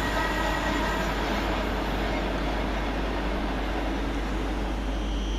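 Class 222 Meridian diesel multiple unit running through on the fast line: a steady rushing of wheels and air, with a high whine that fades about two seconds in.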